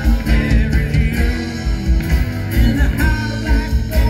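Live rock band playing through a PA, with drums keeping a steady beat under electric and acoustic guitars.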